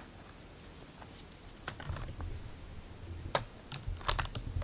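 Light plastic clicks and taps as a small paint cup is capped and fitted into the Crayola Paint Maker's mixing holder. The sharpest click comes a little past three seconds in, over a soft low rumble of handling.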